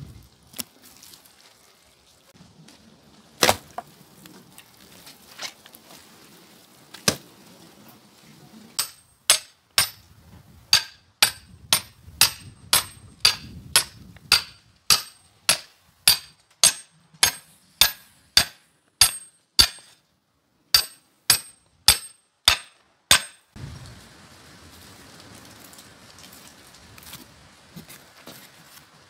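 Sharp knocks struck at a steady pace, about two a second, for some fifteen seconds with one short break, after a few scattered single knocks.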